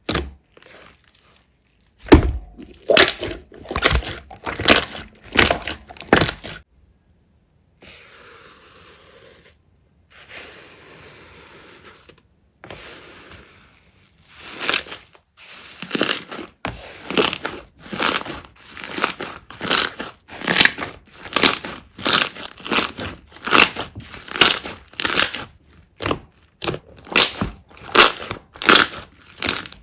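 Slime being squeezed and pressed by hand, giving a run of sharp crackling squelches about one and a half a second. A quieter stretch of soft handling comes about a third of the way in.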